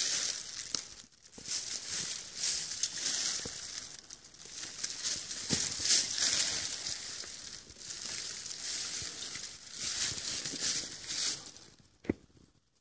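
Footsteps crunching through dry fallen leaves and loose stone chips, an irregular run of rustling steps that stops shortly before the end.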